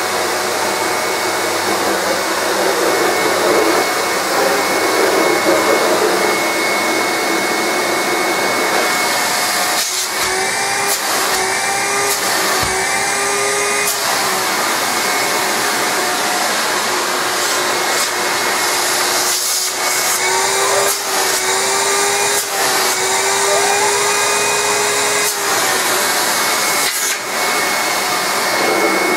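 ETA 0428 900-watt upright vacuum cleaner running steadily, with a constant high whine. Through the middle stretch, extra whistling tones come and go, some rising slowly, with a few short knocks.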